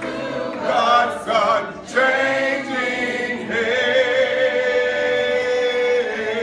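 Unaccompanied hymn singing: voices drawing out long notes with a wavering pitch, with a short break about two seconds in before the next line.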